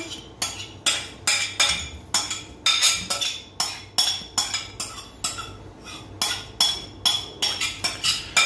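A metal spoon tapping and scraping inside a porcelain bowl, a run of ringing clinks about two to three a second, knocking grated orange peel out of the bowl.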